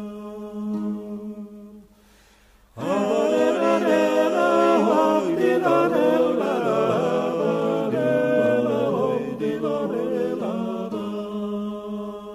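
Gurian (Georgian) folk song sung a cappella by a vocal ensemble in several parts over a held low drone note. The singing breaks off briefly about two seconds in, then comes back louder with the upper voices moving and bending in pitch, settling back onto the drone near the end.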